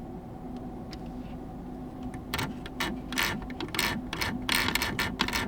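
A small screwdriver turning the joystick tension adjustment screws inside a Flydigi Apex 5 controller: a run of short, irregular scraping clicks starting a little over two seconds in.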